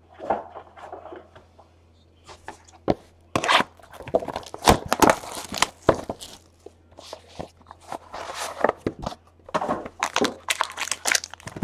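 Trading cards and a cardboard hobby box being handled on a mat: irregular scrapes, taps and rustles of card stock and cardboard, with a short pause about two seconds in.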